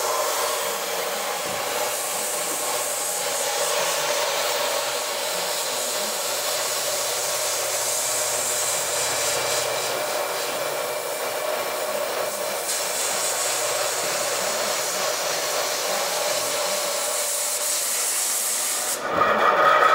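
Compressed-air blow gun hissing steadily onto a 0.6 mm slitting saw on a milling machine as it cuts into a wooden gunstock blank, with the machine's steady hum beneath. The air cools the very thin blade, which would otherwise heat up, bend and bind in the wood. The hiss stops near the end.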